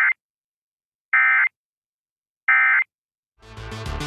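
Emergency Alert System end-of-message signal: three short bursts of SAME digital data tones, a rapid warble between two high tones, evenly spaced with silence between them, marking the close of the alert. Near the end a different low-pitched sound begins.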